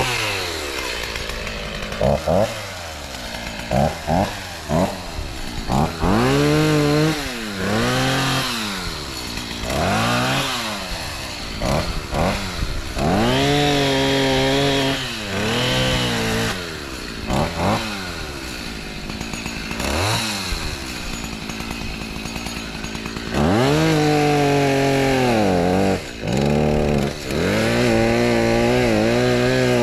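Decades-old Stihl two-stroke chainsaw running, its engine revved up and dropped back to idle again and again, with several stretches held at full throttle for a few seconds each.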